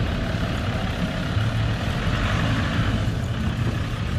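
A motor vehicle's engine running with a steady low drone under even road and street noise.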